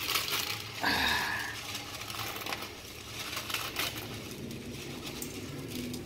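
Dry instant noodles being crushed by hand in a ceramic bowl: irregular crackling and crunching of the brittle noodles, with one louder, briefly ringing knock against the bowl about a second in.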